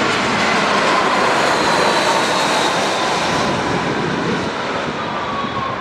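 Jet engines of a Jetstar Airways Airbus A320 on landing approach, passing overhead: a loud, steady rush with a whine that slowly falls in pitch as the airliner flies away, easing off slightly near the end.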